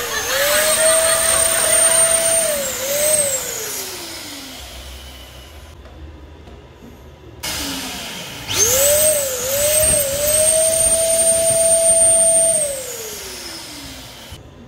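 Electric balloon pump's motor and fan running, blowing a balloon up, its whine dipping briefly in pitch a couple of times. It winds down with a falling whine about three seconds in, starts again about eight seconds in for another four seconds, and winds down again near the end.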